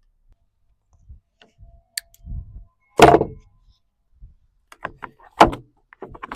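Parts of an electric chainsaw being handled and set down during assembly: a few knocks and clunks, the loudest about three seconds in, between quieter rustling and small taps.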